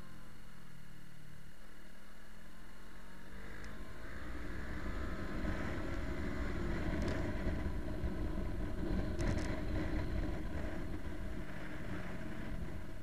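Motorcycle engine running on the road with wind rushing past, heard from on the bike; the sound grows louder from about four seconds in, with a couple of faint clicks.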